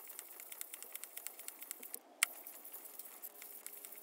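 Cast-iron sole of a Record No. 5 hand plane being rubbed over wet 800-grit wet-and-dry paper to flatten it: faint gritty scratching made of many small ticks, with one sharp click about two seconds in.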